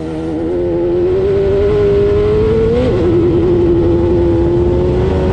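Off-road race car engine running hard. It swells up over the first second, climbs a little in pitch, drops sharply about three seconds in, then holds a steady pitch.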